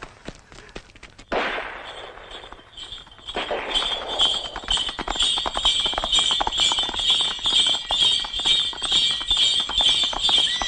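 Horses galloping in, a fast clatter of hooves building from about three seconds in, with harness bells jingling over it.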